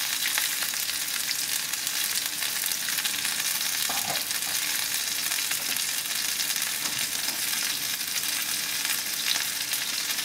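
Hot oil sizzling steadily in a frying pan as a tempering of mustard seeds, cumin, chana dal, dried red and green chillies, ginger and garlic fries, a constant hiss with fine crackling.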